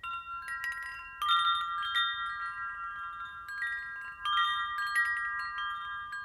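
Soundtrack music in a quiet break without beat or bass: clusters of high, bell-like chime tones struck every second or so, each ringing on and overlapping, with a light wind-chime shimmer.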